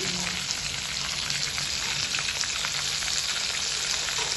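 Flour-battered shrimp deep-frying in hot oil: a steady sizzle with many small crackles and pops.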